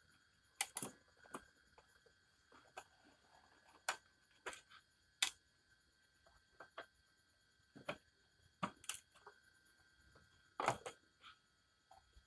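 Screwdriver working the screws on the metal back panel of a Polytron mini hi-fi: irregular sharp clicks and scrapes of metal on metal, a dozen or so spread through, the loudest about half a second in and near the end.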